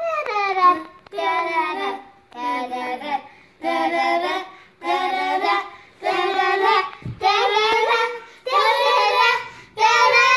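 A child singing a wordless 'do do do' tune in about nine short phrases, each about a second long with brief breaths between. The melody climbs higher in the later phrases.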